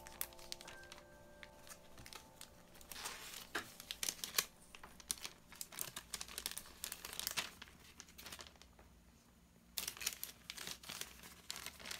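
Clear plastic packing bag crinkling and rustling as hands slide a kraft paper sleeve into it. Light taps at first, dense crinkling through the middle, a quieter pause a little past halfway, then crinkling again near the end.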